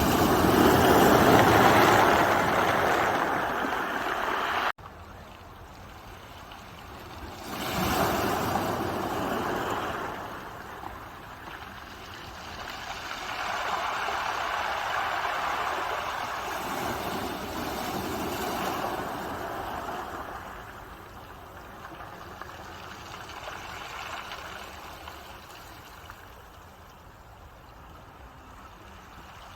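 Ocean waves breaking and washing up the shore, the surf swelling and fading every few seconds. The level drops abruptly about five seconds in, then the waves go on more softly.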